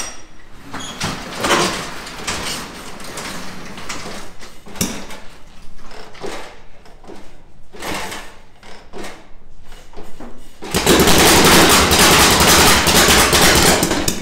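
Irregular mechanical clunks and knocks from a 1965 Harley-Davidson pan/shovel chopper as it is tried for a start without running. About eleven seconds in, a loud rushing noise lasts about three seconds.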